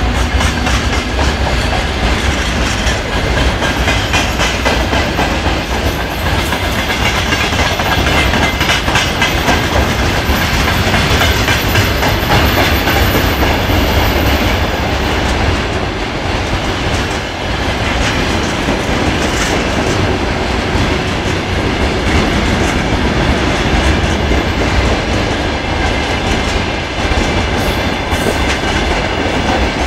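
Freight wagons rolling past close by in a long train, a steady loud rumble with the wheels clattering over the rail joints.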